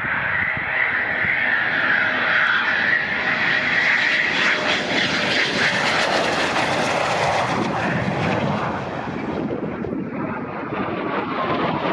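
Eurofighter Typhoon's twin EJ200 turbofan engines on landing approach: a high whine over a jet rush that swells to its loudest as the jet passes close by, a few seconds in. The noise eases about nine seconds in as it comes down onto the runway, then picks up again near the end.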